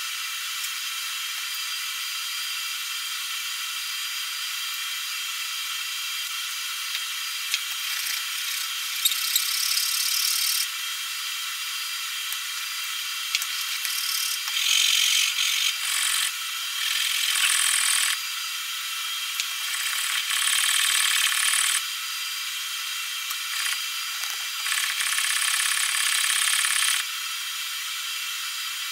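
Steel plane blade rubbed back and forth on an abrasive sharpening plate, in five scraping bursts of one to two seconds each starting about a third of the way in, over a steady background hiss.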